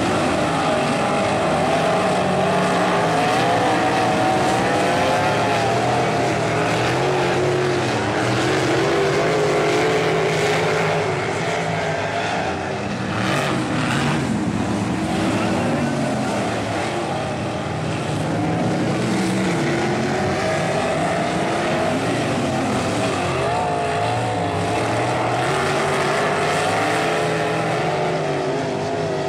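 Several non-winged sprint cars' V8 engines racing around a dirt oval. Their pitches rise and fall and overlap as the cars accelerate off the turns and pass by.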